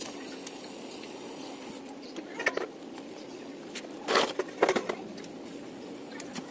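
TIG welding on a stainless steel exhaust pipe: a low, steady hiss and hum, with a few short, sharp knocks or crackles about two and a half seconds in and again twice between four and five seconds in.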